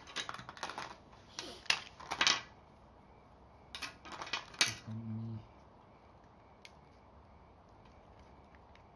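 Plastic Play-Doh toy pieces clicking and clattering as they are handled, in short bursts over the first five seconds, then only faint ticks.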